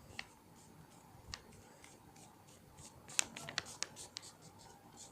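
A sheet of A4 paper being handled and folded in half, giving faint rustling with crisp crackles and ticks, a quick cluster of them about three seconds in.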